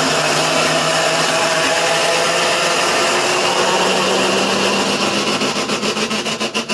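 Consul washing machine in its spin cycle, making a loud, steady mechanical noise over a hum; very noisy. Near the end the noise turns into a rapid pulsing before cutting off suddenly.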